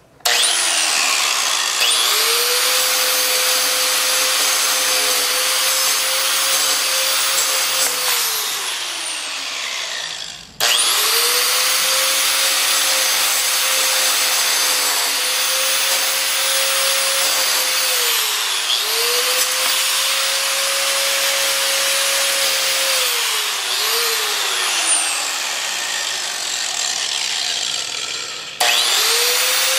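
Angle grinder grinding an iPhone 6: the motor spins up with a steady whine under a harsh grinding hiss. It slows down several times, stops about ten seconds in and is switched on again at once, and starts once more near the end.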